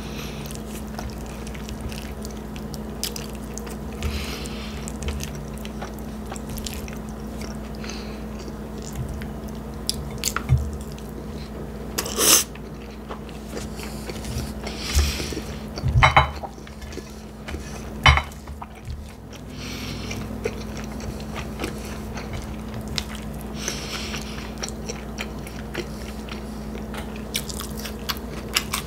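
A person chewing and biting into a bacon cheeseburger and fries close to the microphone: wet mouth sounds and small clicks, with a few louder bites about midway and a steady low hum underneath.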